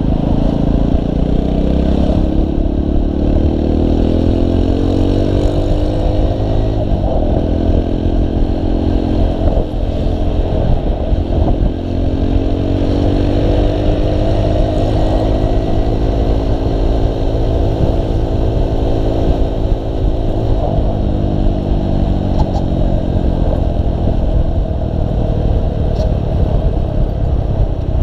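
Motorcycle engine pulling through the gears under way. Its pitch rises from the start, drops sharply about seven seconds in at a gear change, climbs again, holds steady, then falls back around twenty-one seconds. Steady wind rumble on the bike-mounted microphone runs underneath.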